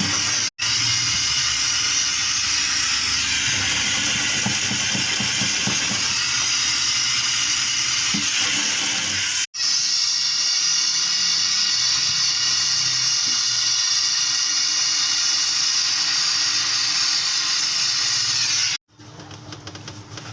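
Gas torch flame hissing steadily during brazing on refrigeration pipework. It breaks off twice for an instant, and near the end gives way to a quieter buzzing hum.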